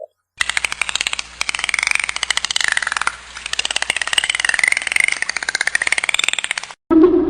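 A wild animal's rapid buzzing rattle, made of very fast pulses. It starts about half a second in and cuts off sharply near the end.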